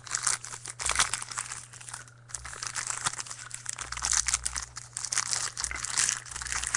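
Foil trading-card pack wrapper crinkling and tearing as a pack is ripped open, a dense irregular crackle with a brief lull about two seconds in.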